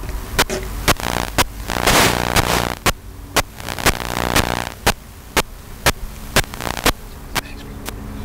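Sharp clicks at a steady rate of about two a second over a steady low hum. Between about one and four and a half seconds in, a denser stretch that may be faint voices comes in under the clicks.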